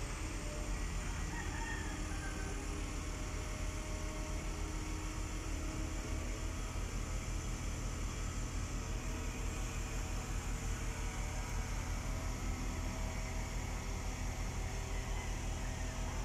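A mobile crane's diesel engine running steadily as it hoists a precast concrete bridge girder, a constant low rumble under a steady hiss.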